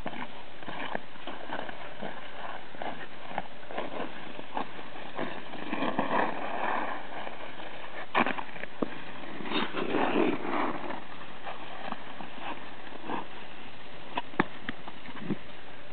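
Ice skate blades scraping and gliding on rough, scratched natural ice, with many small clicks and scratches and two louder, longer scrapes about six and ten seconds in.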